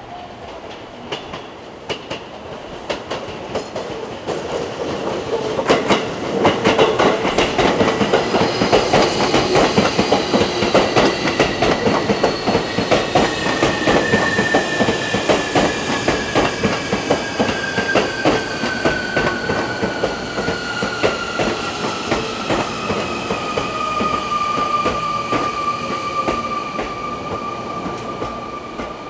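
Electric train arriving and braking: its VVVF inverter whine falls slowly and steadily in pitch as the train slows, over the clatter of wheels on the rails. It grows louder about six seconds in as the train comes close.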